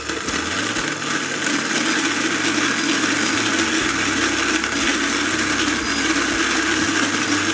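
Electric burr coffee grinder grinding about 15 g of light-roast beans, set fairly fine at 3. The motor and burrs make a loud, steady grinding noise that builds up over the first second once the beans start to drop in.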